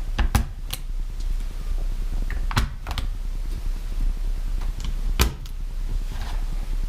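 A handful of sharp clicks and light taps from small plastic instrument-cluster parts being handled on a workbench, over a steady low hum.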